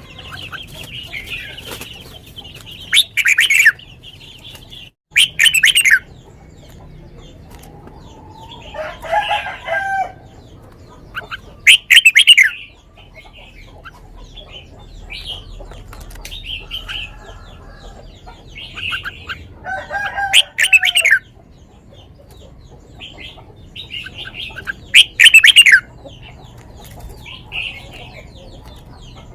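Red-whiskered bulbul singing: about five short, loud, bright song phrases with pauses between them, and softer chirps in the gaps.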